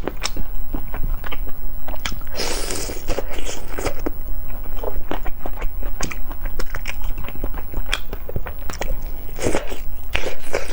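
Close-miked eating sounds: fingers handling sauce-glazed cola chicken wings, then biting and chewing, a run of sticky clicks with a few louder bursts about two and a half seconds in and near the end.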